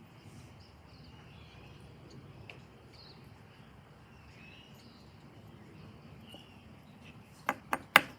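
Quiet background noise with a few faint, high chirps, then three sharp clicks close together near the end, the last one the loudest.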